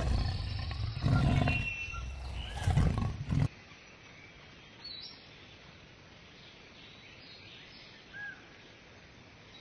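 Lion roaring in several loud bursts over the first three and a half seconds, then cutting off abruptly. After that only a faint steady hiss remains, with two brief faint chirps.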